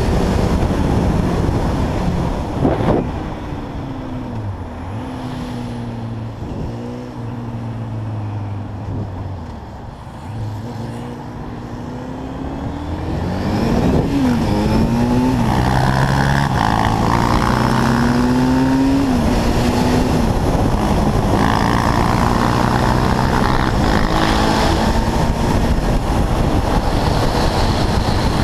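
Onboard sound of a sport quad's engine under way. Through the first half it runs lighter, its pitch sagging and falling off with the throttle. From about halfway it revs up and shifts through the gears several times, the pitch climbing and dropping back at each shift, over steady wind noise on the microphone.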